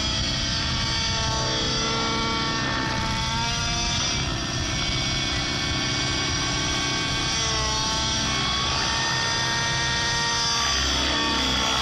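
T-Rex 700 radio-controlled helicopter with a petrol engine, its engine and rotor running continuously, the pitch sinking and rising again several times.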